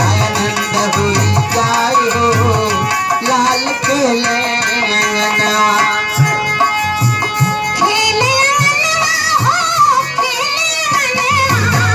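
Kajri folk music: a steady hand-drum beat under a melody line. From about eight seconds in, a higher, wavering melody enters.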